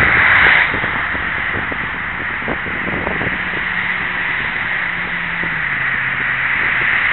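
Steady road noise of highway traffic, heard through a small camera microphone, with a faint low hum that drops in pitch a little past halfway.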